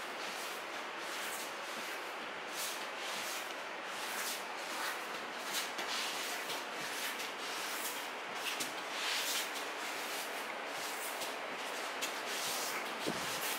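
A child's knees and feet sliding and brushing over tatami mats, with the rustle of a cotton keikogi, in knee-walking (shikko) with turns: a run of soft, irregular swishes.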